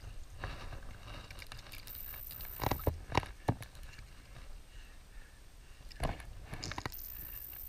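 Close handling noise from a netted brown trout in a wooden-framed landing net: low rustling with a few sharp knocks, three about three seconds in and one more near six seconds.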